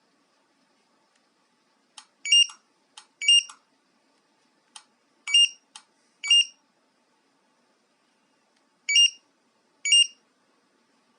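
Car alarm key fob (pager fob) beeping: six short high-pitched beeps in three pairs, each pair about a second apart, with sharp clicks of its buttons being pressed before some of them.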